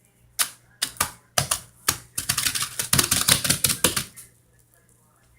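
A plastic bag full of soapy foam being squeezed and handled: a few separate sharp crinkles, then about two seconds of dense crackling, stopping a little after the middle.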